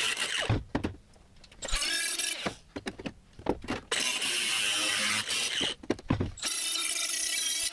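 Cordless Milwaukee die grinder with a small cut-off disc trimming a steel repair panel for a car floor pan. It runs in several bursts with a steady high whine, spinning down in the short gaps between cuts.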